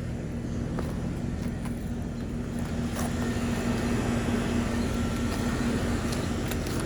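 Outdoor air-conditioner condensing unit running: a steady compressor hum under the rush of the fan, growing a little louder about three seconds in.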